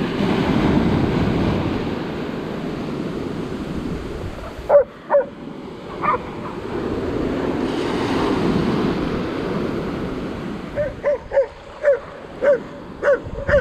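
Surf washing in on the beach, swelling twice, while a dog barks: a few barks around the middle, then a quick run of barks near the end.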